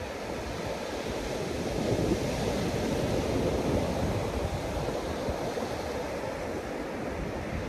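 Rough sea surf breaking on the beach, a steady rushing wash, with gusts of wind buffeting the microphone.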